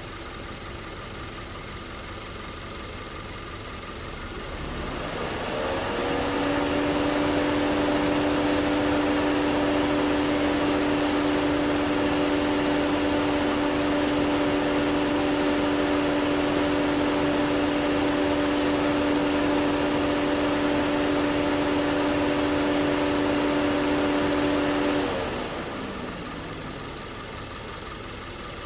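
A Ford Explorer's air-conditioning system starts a loud hiss with a steady whirring hum. It rises in pitch about five seconds in, holds steady, then winds down near the end, over the idling engine. This is the hissing that the owner is asking about.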